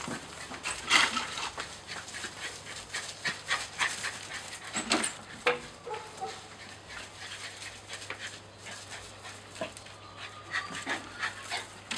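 Small dog panting, with many short irregular rustles and clicks as it moves about.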